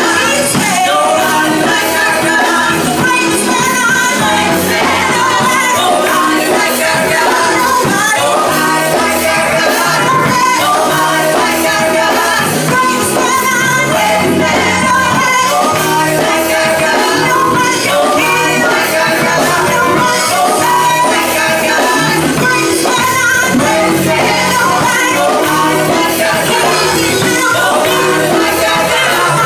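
Women's gospel praise team singing into microphones over instrumental accompaniment, with several voices together.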